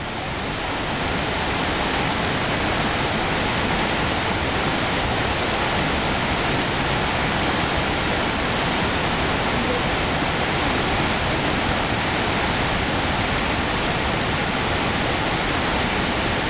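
Steady rush of flowing water, an even noise with no change.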